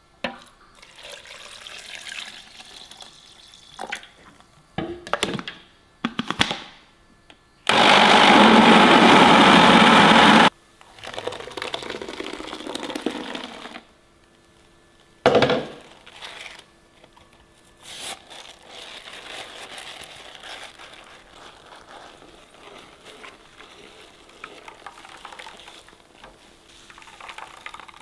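Countertop blender grinding chopped coconut, running loud and steady for about three seconds and cutting off abruptly. Afterwards come quieter liquid pouring and splashing as the blended coconut goes into a steel bowl and is squeezed by hand, with a knock in between.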